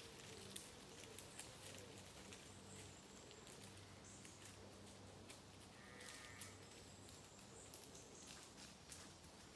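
Near silence: faint woodland ambience with scattered small clicks and a brief faint chirp about six seconds in.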